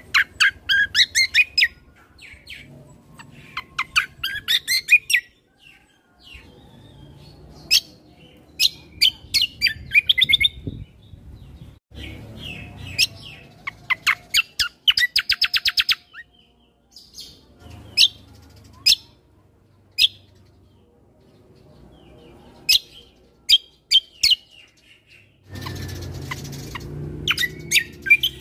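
Kecial kombo (cucak kombo) songbird singing in bursts of sharp, rapidly repeated chirps and fast trills, with short pauses between phrases. A faint low hum runs underneath, and a band of hiss comes in near the end.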